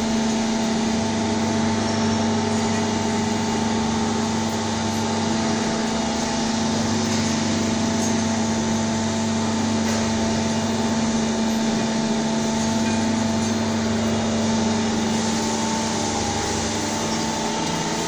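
Steady hum of running industrial machinery: a low drone and a higher steady whine over a broad hiss.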